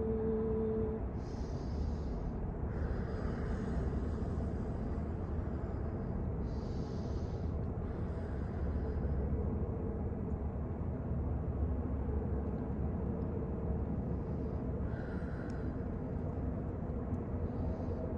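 Steady low background rumble with a few faint brief hisses. A held ringing tone stops about a second in.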